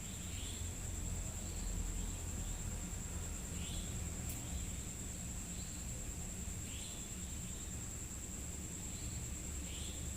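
Night insects, crickets: a steady high-pitched drone with short chirps recurring every second or two, over a low rumble. A single sharp tick a little past four seconds in.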